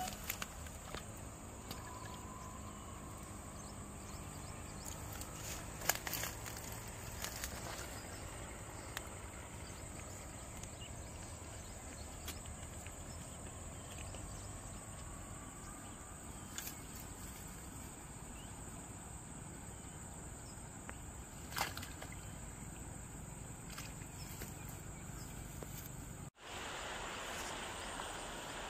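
Open-air ambience with a steady high insect drone over a low rumble, broken by a few sharp clicks, the loudest about six and twenty-two seconds in. The sound cuts out for a moment near the end.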